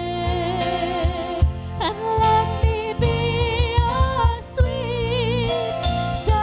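Christian worship song: a sung melody held on long notes with vibrato, over a band with a steady drum beat.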